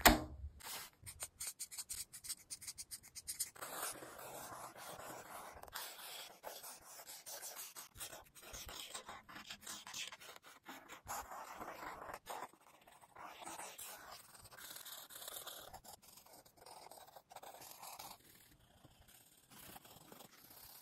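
Pen and colored pencil on notebook paper: a knock at the very start and a fast run of light clicks as the spiral notebook is handled, then scratchy strokes of a pen drawing lines, followed by colored pencil shading, in uneven spells with short pauses.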